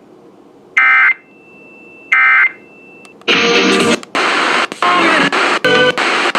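Emergency Alert System end-of-message data tones: two short, harsh digital squawks about a second and a half apart, closing out the test. About three seconds in, loud radio station audio with music cuts in abruptly, in choppy segments.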